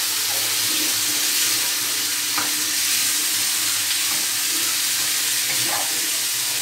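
Shrimp with green and red peppers and garlic sizzling steadily in oil in a frying pan, being sautéed, with now and then a light stroke of a wooden spatula stirring them.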